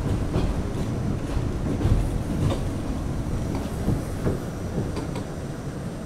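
R68 subway train heard from inside the car as it slows into a station: a low rumble with wheels clicking over rail joints, the clicks coming further apart and the rumble fading as it comes to a stop.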